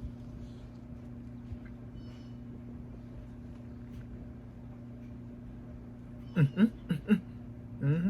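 A steady low electrical hum. About six seconds in, a few short, loud bursts of a person's voice break in, and one more comes near the end.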